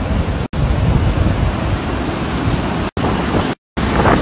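Ocean surf washing up the beach, with wind buffeting the phone's microphone. The sound breaks off for an instant three times.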